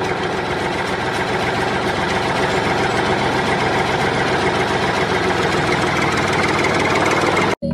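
Engine idling steadily with a fast, even chug, cutting off abruptly near the end.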